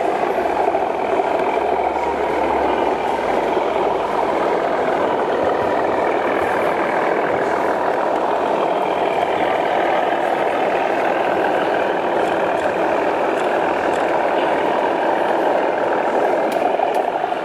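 Sound-fitted model diesel locomotive: a recorded diesel engine sound played through the model's small speaker, running steadily with slight shifts in pitch.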